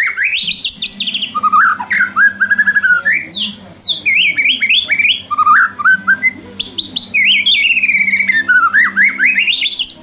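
White-rumped shama (murai batu) singing loudly and continuously: fast runs of repeated notes that sweep down in pitch and climb back up, phrase after phrase, stopping right at the end.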